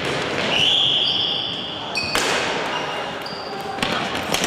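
Floorball play in a sports hall: short high squeaks of sneakers on the hall floor, sharp clicks of sticks on the ball, and echoing background noise from players and spectators.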